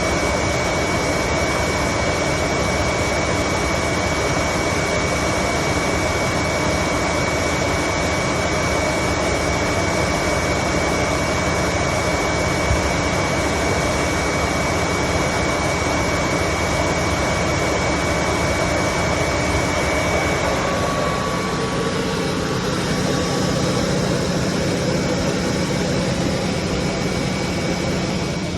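Gladel washing machine running a fast spin, with a steady loud whirring and a high whine. About two-thirds of the way through, the whine stops and the sound turns lower.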